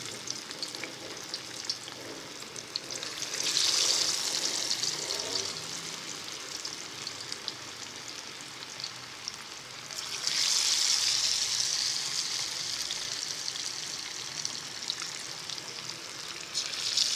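Gram-flour-coated fish pieces deep-frying in hot oil: a steady sizzle that flares up sharply about three seconds in, about ten seconds in and again near the end, as more pieces are lowered into the oil.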